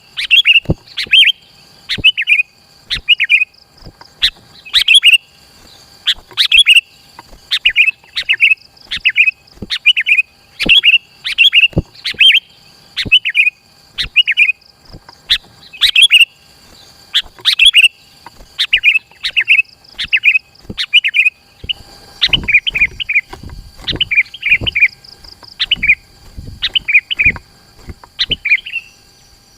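Sooty-headed bulbul (kutilang) singing without pause, a dense run of short whistled phrases, about one to two a second.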